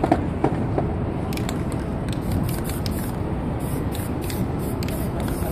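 Aerosol spray-paint can sprayed in several short hissing bursts, with a few sharp clicks in the first second, over a steady low city hum.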